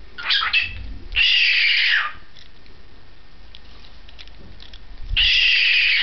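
Cockatiel giving two loud, harsh calls of about a second each, one about a second in and one near the end, each dropping in pitch as it ends, with a short scatter of rough sounds at the start.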